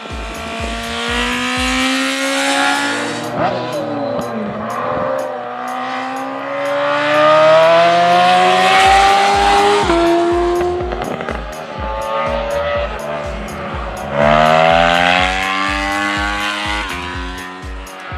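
Racing sidecar outfits' engines running hard on track, with several runs of rising pitch as they accelerate through the gears and sudden drops at the shifts. Background music with a steady beat runs underneath.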